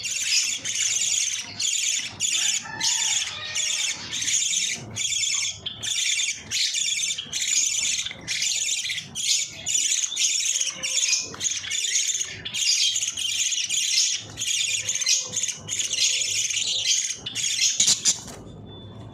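Budgerigars calling in a continuous, rasping, high-pitched chatter that comes in short bursts about twice a second, with a brief pause near the end.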